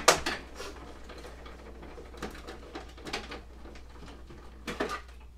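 Hand-cranked die-cutting machine being turned, a long cutting plate feeding through its rollers with a sharp knock at the start, then irregular clicks and knocks as it takes several cranks to come out the far end.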